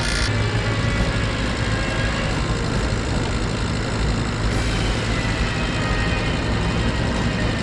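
A machine running steadily: a constant low hum under a broad, even noise, with no break or change in speed.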